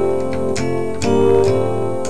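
Electronic keyboard played by hand: a few chords struck in turn, each ringing on until the next.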